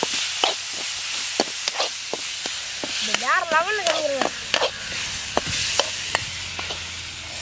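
Chopped onions, tomatoes and peppers sizzling as they fry in a metal kadai over a wood fire, stirred with a steel ladle that scrapes and clinks against the pan again and again.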